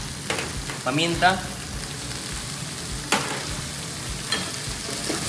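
Ground pork with tomato and onion sizzling steadily in a nonstick wok over a gas flame. A sharp tick comes about three seconds in, and a fainter one a second later.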